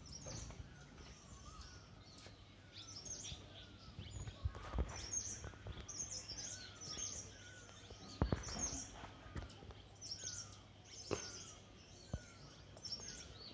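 Several birds chirping and calling in trees: quick high chirps throughout, and a run of short sliding whistled notes repeated lower down. There are a few dull thumps, the loudest about 8 seconds in.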